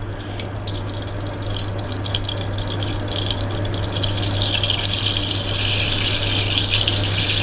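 Butter melting and frothing in a stainless steel saucepan over a gas flame: a steady sizzle with fine crackling that grows louder and busier over the few seconds, over a low steady hum.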